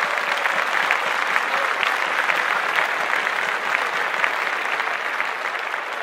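Crowd applauding: a steady wash of many hands clapping, easing off slightly near the end.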